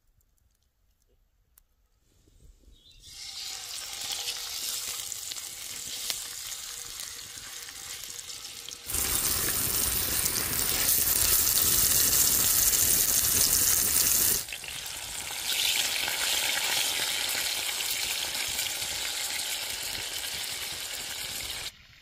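Chicken breast frying in olive oil in a cast-iron skillet: a steady sizzle that starts a couple of seconds in, is loudest from about nine to fourteen seconds in, and stops abruptly just before the end.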